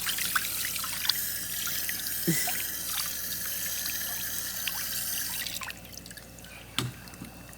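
Water running and splashing as a dog is rinsed during a bath, with small splashes and drips throughout. The running water cuts off about five and a half seconds in, leaving only scattered drips.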